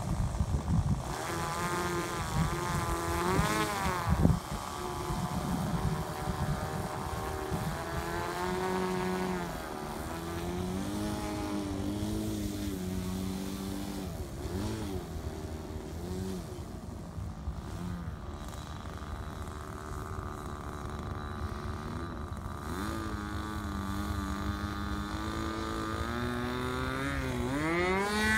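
Engine of a Hangar 9 Nexstar R/C trainer airplane running on the ground, its pitch rising and falling as the throttle is worked while it taxis. Near the end it climbs steeply as the engine is opened up for the takeoff run. A few thumps come in the first few seconds.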